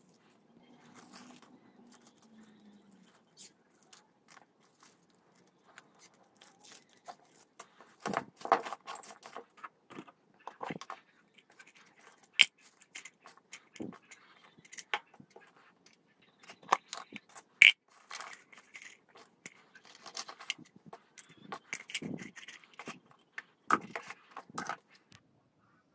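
Scrap from taken-apart disposable vapes (foil strips and plastic parts) being handled and packed into plastic tubs: irregular clicks, knocks, scrapes and crinkling, with two sharp clicks about 12 and 18 seconds in.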